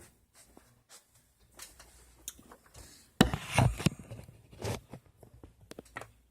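Hard kitchen objects being handled: scattered knocks and clicks, with a loud clatter a little after three seconds in and another near five seconds.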